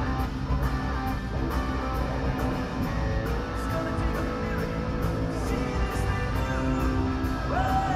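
Rock band playing live through a large arena's PA: guitar over bass and drums, with a steady beat of high ticks.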